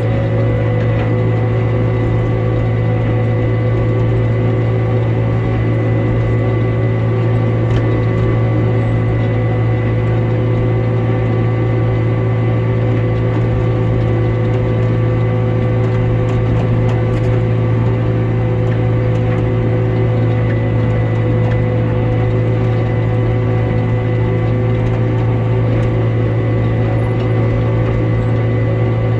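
Tractor running steadily with a hay implement working: a constant engine drone with a steady whine from gears.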